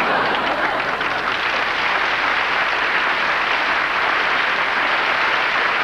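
Studio audience applauding, a steady dense clapping that holds at one level throughout.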